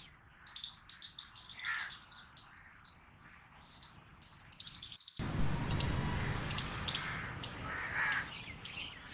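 Squirrel barking: rapid clusters of sharp, high-pitched chirping calls with short gaps between them. About five seconds in, a steady low background hiss starts under the calls.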